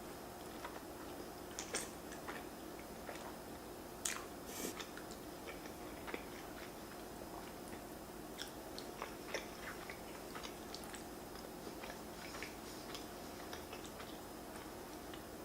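A person chewing and biting a mouthful of king crab Alfredo pasta close to the microphone: a run of small wet clicks and smacks, with a few louder clicks in the first five seconds.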